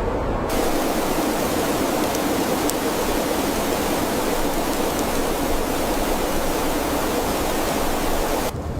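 Loud, steady rushing noise with no clear pitch. A brighter hiss cuts in abruptly about half a second in, and the sound cuts off abruptly near the end.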